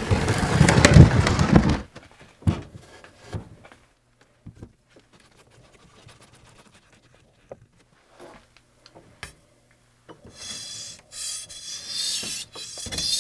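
A loud rush of noise for the first two seconds, then scattered knocks and clunks as a 1000-grit water stone is fixed in its clamping holder. From about ten seconds in, a steel katana blade is rubbed across the stone in repeated rasping strokes.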